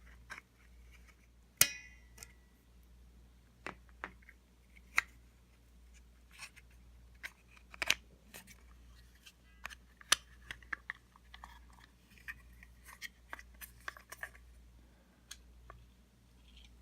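Irregular small clicks and taps of plastic and metal parts being handled while a spring is fitted into a robot vacuum's drive-wheel gearbox, with one sharp clink about one and a half seconds in that rings briefly.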